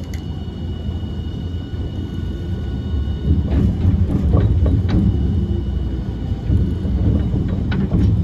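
Running sound of a Hiroshima Electric Railway 1000-series Green Mover LEX ultra-low-floor tram, heard from on board: a steady low rumble that grows louder about three seconds in, with scattered clicks and knocks.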